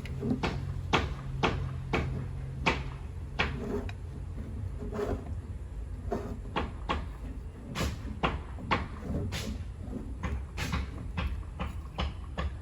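Irregular knocks and clicks of hard objects being handled, roughly one or two a second, over a low steady hum.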